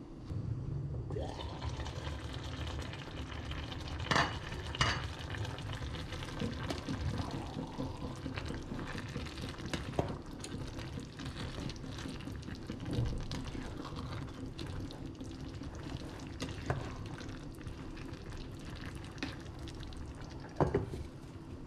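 A pot of tomato rice and potatoes simmering while a spatula stirs it, scraping and tapping against the pot. There are a few sharper clinks about four seconds in, and a louder knock near the end as the glass lid is set back on the pot.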